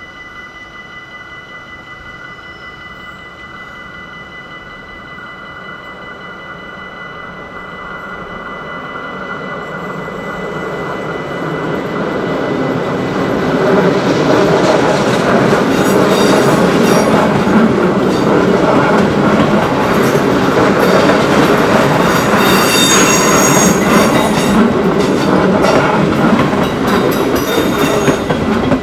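An electric passenger train approaching and passing a level crossing, swelling over the first dozen seconds into a loud, steady rumble of wheels on rail with rapid clicks over the rail joints and some high wheel squeal. The crossing's warning bell rings steadily underneath.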